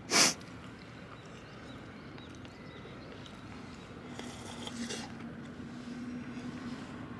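A person slurping curry cup noodles: one short, loud slurp just after the start, then softer sipping of the broth from the cup a few seconds later.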